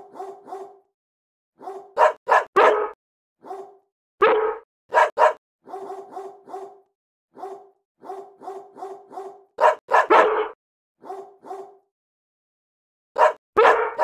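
Dog barking: runs of short, quick yaps, about four or five a second, with a few louder, fuller barks mixed in. It stops completely between runs, as if edited in as a sound effect.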